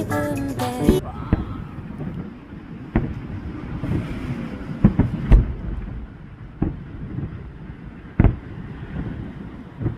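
Fireworks going off: about six deep booms at uneven intervals, the loudest about five seconds in, over a steady outdoor rumble.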